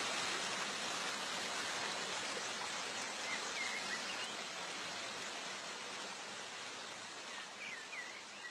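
Steady rushing of a waterfall, slowly growing fainter, with a few short high chirps over it.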